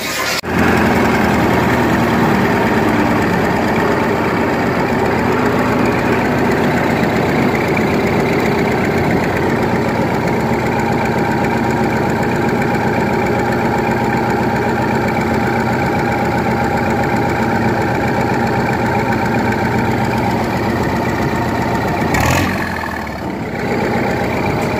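Massey-Harris 44 Special diesel tractor engine running steadily.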